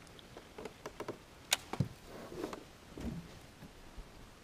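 Scattered clicks, taps and soft rustles of hands handling a caught bass and a plastic frog lure, with one sharp click about a second and a half in.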